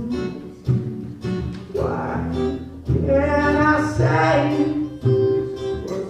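Acoustic guitar strummed in chords while a young man sings a song, held notes between fresh strums.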